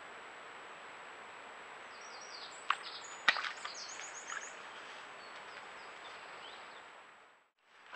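Steady hiss from a trail camera's microphone over outdoor ambience. In the middle a small bird chirps in a quick series of short high notes, and two sharp clicks stand out, the loudest sounds.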